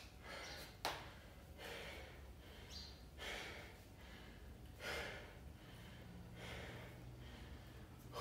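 A man breathing hard after a set of push-ups, catching his breath in heavy breaths about once a second. A single sharp click comes a little under a second in.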